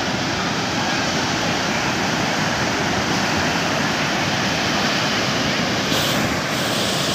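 Ocean surf breaking and washing up the beach in a steady rush. A brief brighter hiss comes about six seconds in.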